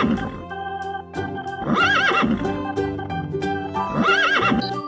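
A horse whinnying three times, about two seconds apart, each a wavering, quavering call, over background music with steady organ notes.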